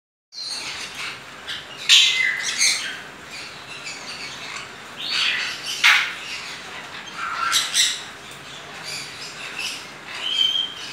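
Greater sulphur-crested cockatoo eating a plum nut held in its foot, making a series of short, harsh, irregular sounds, with a brief whistled note near the end.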